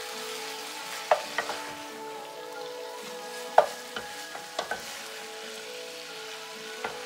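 Wooden spatula stirring deer meat roast in a skillet, scraping and knocking against the pan several times, loudest about a second in and again near the middle. The meat sizzles quietly underneath as it fries down dry.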